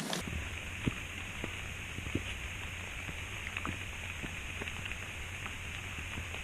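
Light rain: scattered drops tapping at irregular intervals over a steady hiss.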